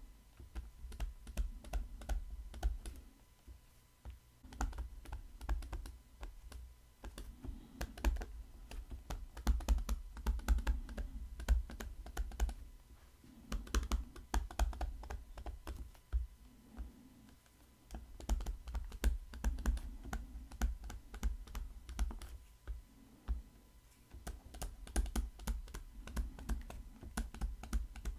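Pen stylus tapping and scratching on a tablet while handwriting. It makes a quick, uneven patter of small clicks and dull knocks in runs, with short pauses between words.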